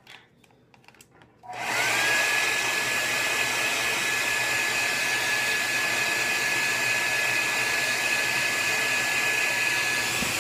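Hair dryer switched on about a second and a half in, blowing steadily with a high whine that rises briefly as the motor spins up and then holds; it stops near the end. It is heating a nail wrap on a fingernail to soften it and seal it down.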